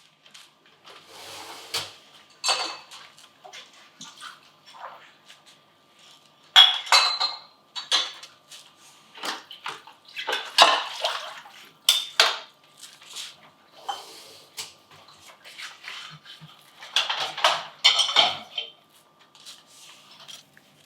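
Dishes being washed by hand: ceramic plates and cutlery clinking and clattering against each other at irregular intervals, with splashes of water in between.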